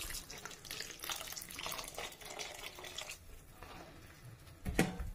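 Water being poured into a pan of thick cooked mung dal, a steady pour that stops about three seconds in. A sharp knock near the end.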